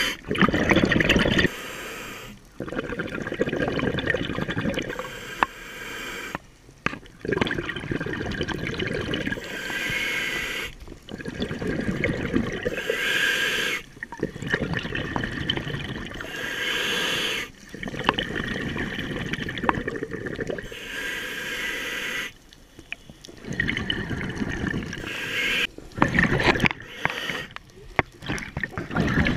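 A scuba diver breathing through a regulator underwater: rushing, bubbling exhalations alternating with quieter inhalations, a breath cycle about every three to four seconds.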